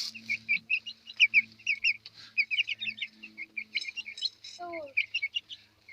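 Young Sasso chicks peeping: a rapid, continuous run of short, high cheeps. A brief lower falling call comes about three-quarters of the way in.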